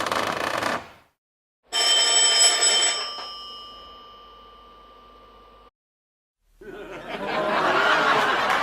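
A series of separate sound effects. About two seconds in, a bell rings once, sharp at the start, its steady tones fading over about four seconds before cutting off. Near the end, a crowd noise with applause and voices starts up.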